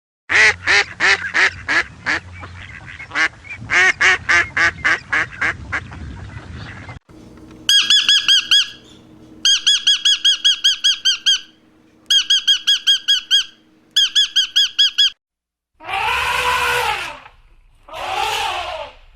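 Several different animal calls in turn. First comes a rapid run of pulsed squawking calls. Then there are four bursts of high, quickly repeated chirps, and near the end two longer calls that rise and fall.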